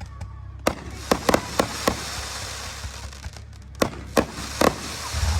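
Aerial fireworks going off: about eight sharp bangs in two quick clusters, with a steady crackling hiss between them.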